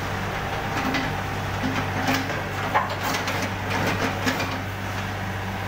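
Mini excavator's diesel engine running steadily while its steel tracks clank and knock on the truck's loading ramps as it drives down off the flatbed, with a run of sharp knocks through the middle, two of them loudest.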